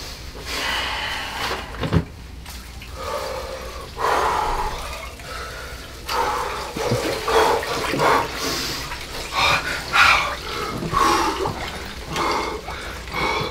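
Ice water sloshing and splashing in an inflatable ice-bath tub as a man climbs in and sinks into it up to his chest.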